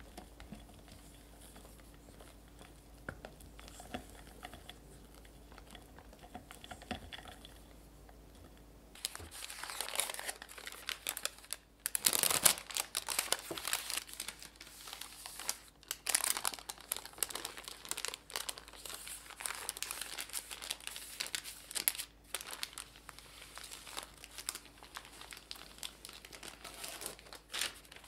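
Faint soft scraping of a silicone spatula in whipped cream in a glass bowl. About nine seconds in, this gives way to loud crinkling and rustling of baking paper as hands smooth it down over a baked sponge sheet and peel it back.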